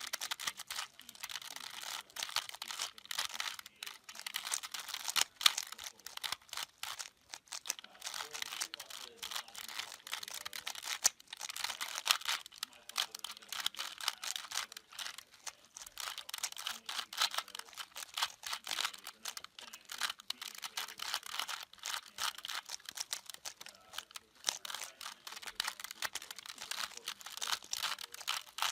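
A 3x3 twisty-puzzle cube being turned quickly by hand, its plastic layers clicking and clacking in a fast, irregular stream.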